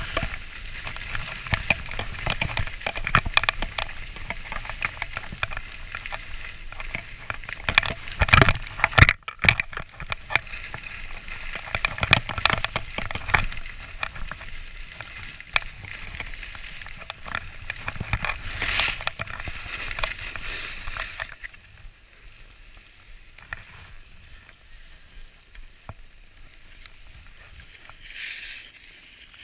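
Skis hissing and scraping over snow at speed on a downhill run, with wind rushing over the camera and many small crackles of the edges on the snow. The noise drops much quieter about two-thirds of the way through.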